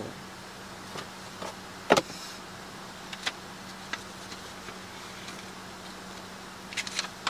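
Light clicks and knocks of a cold brew bottle being handled, the sharpest about two seconds in and a few quick ones near the end, over a faint steady hum.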